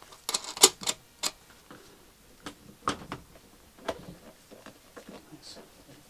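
Sharp metallic clicks and taps of tools and cable hardware being handled at the battery terminals: a quick run of clicks in the first second, then a few single clicks.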